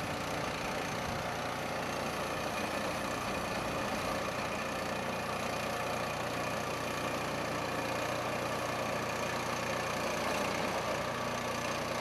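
Norwood LumberLite ML26 portable band sawmill at work: the small gasoline engine on its sawhead running steadily while the band blade saws along a squared log.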